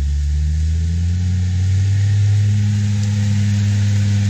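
Off-road 4x4's engine rising in revs in the first second, then holding steady at those revs.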